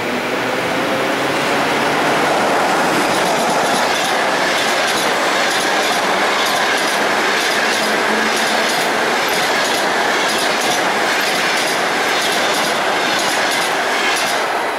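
An EP20 electric locomotive and its passenger coaches passing at speed: a steady, loud rush of wheels and air with rapid clicking of wheels over the rails. It dies down right at the end as the last coach goes by.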